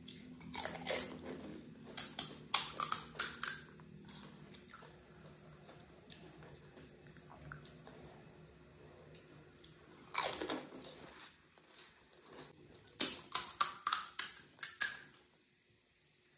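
Crisp pani puri shells crunching and cracking, in short bursts of sharp crackles, with wet sounds of the spiced water.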